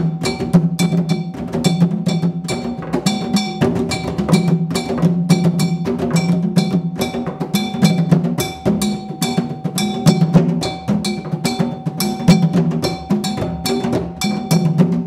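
Ensemble of West African pegged wooden hand drums struck with bare hands, playing a dense, interlocking repeating pattern. A steady stream of sharp, high strokes runs over the low drum tones.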